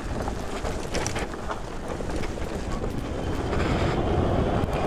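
Super73 R-Series electric bike rolling over bumpy dirt and onto asphalt: a steady tyre-and-frame rumble with irregular rattles and clicks, getting louder near the end.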